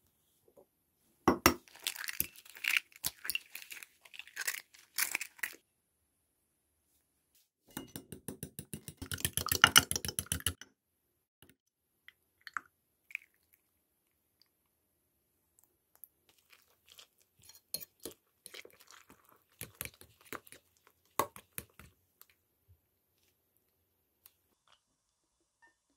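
Eggs being cracked and then beaten fast with a fork or whisk against a glass measuring cup: a quick, even run of clinking strokes, the loudest part, about midway. Later come soft scattered clinks and wet sounds as beaten egg is poured into a glass bowl of tofu and seaweed and stirred.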